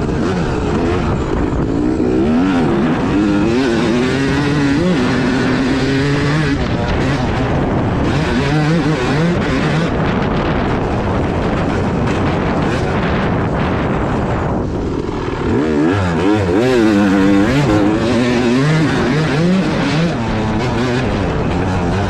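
Yamaha motocross bike's engine being ridden hard, revving up and down again and again as the throttle is opened and closed through the turns and straights. About two thirds of the way through the note dips briefly, then climbs louder.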